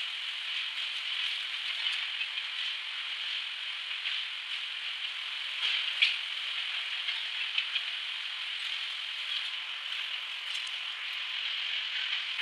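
Steady hissing machinery noise of a steel rolling mill at work, with scattered small clicks and one sharper click about halfway through.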